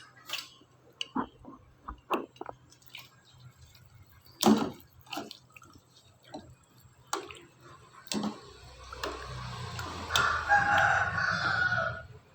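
Scattered light knocks and clicks of pots and utensils in a kitchen, the loudest about four seconds in. From about eight seconds in, a long, wavering animal call lasts some three seconds, with a low hum under it.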